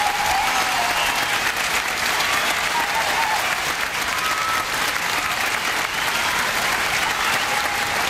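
Large stadium concert audience applauding steadily, a dense wash of clapping with occasional whistles and cheers rising above it.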